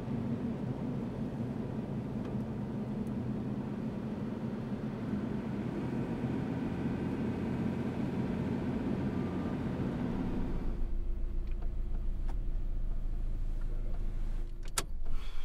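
Car engine running steadily while driving, then settling to a lower, deeper idle about eleven seconds in. A couple of sharp clicks come near the end.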